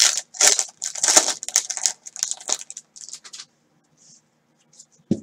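Foil trading-card pack wrapper being torn open and crinkled, a run of crackling rustles for about three and a half seconds, then quiet but for a single short knock near the end.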